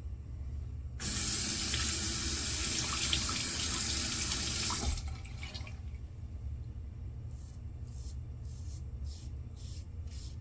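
Bathroom tap running into a sink for about four seconds, then a run of short, quick scraping strokes of a safety razor cutting stubble against the grain.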